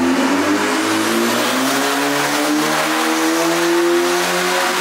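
Another car's engine held at raised revs, its pitch climbing slowly and easing back near the end. It is put down to a smog check.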